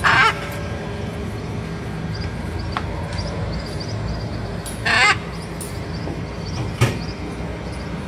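Macaw giving short, harsh squawks, one right at the start and another about five seconds in, over a steady low background rumble. A single sharp click comes about seven seconds in.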